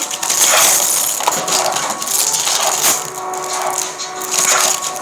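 Foil trading card pack wrapper being torn open and crinkled, a dense crackling and rustling with small sharp clicks.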